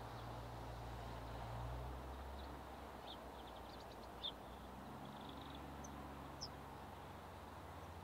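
Small songbirds calling at a garden feeder: a few short, thin, high chirps in the middle seconds, over a faint low steady hum.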